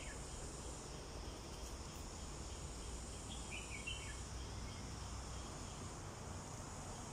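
Quiet outdoor ambience: a steady high-pitched insect drone over a low rumble, with one short warbling bird call about three and a half seconds in.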